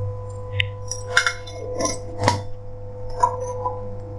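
A metal spoon clinking against cookware as half a spoon of turmeric powder is scooped and added to the soup pot: several short, light clinks spread over a few seconds, over a steady hum.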